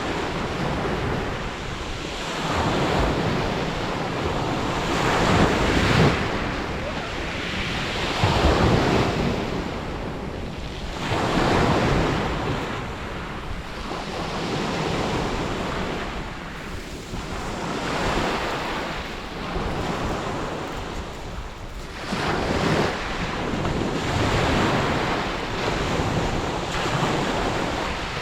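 Sea waves breaking and washing up on a beach, the surf swelling and ebbing every few seconds.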